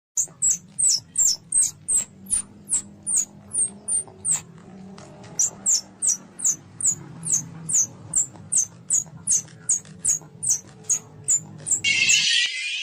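A small animal's short, high-pitched chirps, each sliding down in pitch, repeated about three times a second with one brief pause. A loud hiss cuts in near the end.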